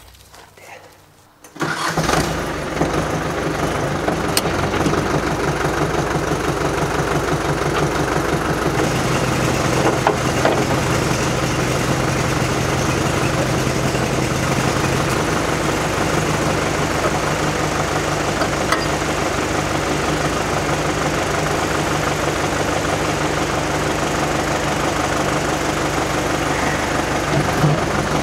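An engine comes in abruptly about two seconds in and then runs steadily.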